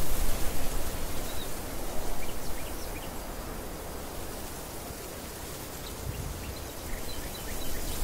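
Wind sweeping over a field of green barley: a steady rustling hiss from the stalks, with the wind buffeting the microphone in gusts that are strongest in the first two or three seconds and again near the end. Faint short bird chirps are scattered through it.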